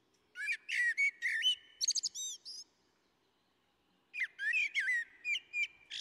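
A songbird singing two phrases of quick, varied whistled notes, the first near the start and the second about four seconds in.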